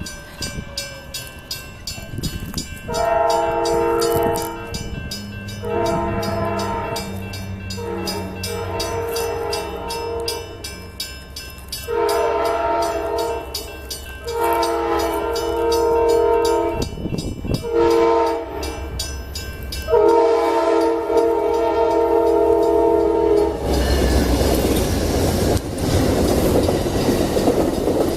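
Train horn sounding a series of blasts, several long and a few short, each a steady multi-note chord. Near the end the horn stops, and the loud rumble and rattle of the train running past takes over.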